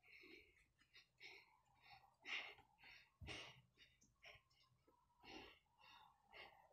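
Near silence, with faint short breaths and small rustles of movement every second or so.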